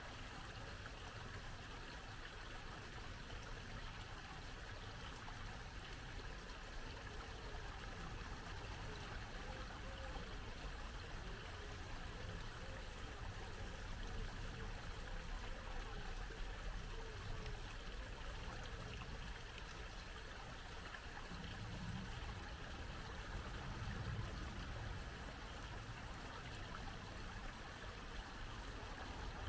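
Shallow babbling brook, water trickling and gurgling steadily over stones.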